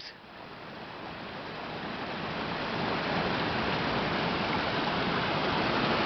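Small mountain stream rushing over rocks, a steady rush of water that grows louder over the first few seconds and then holds.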